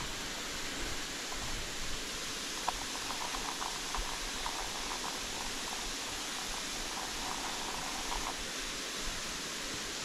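Steady rush of a waterfall pouring into a pool, with a scatter of faint small ticks in the middle.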